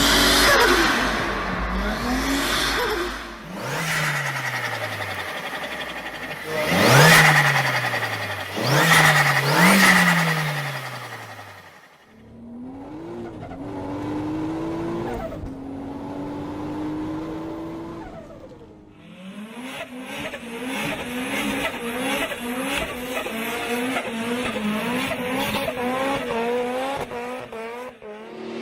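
Turbocharged car engines revving up and dropping back in a series of short clips, with the rapid chattering flutter of the turbo when the throttle is lifted. The sound changes abruptly about 12 and 19 seconds in as one clip gives way to the next.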